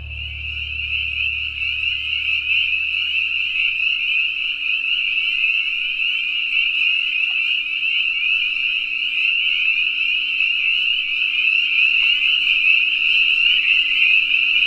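A dense chorus of frogs calling: a continuous, shrill, high-pitched peeping that grows a little louder. Low background music fades out in the first few seconds.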